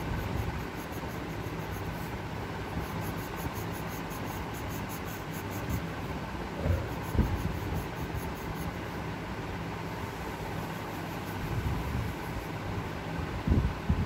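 Coloured pencil rubbing on paper in quick shading strokes, over a steady low rumble, with a couple of dull thumps about seven seconds in and again near the end.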